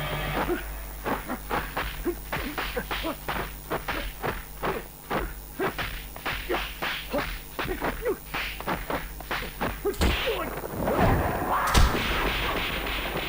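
Kung fu film fight sound effects: a fast run of punch and block hits mixed with swishes, about three a second, ending in a louder, heavier blow near the end.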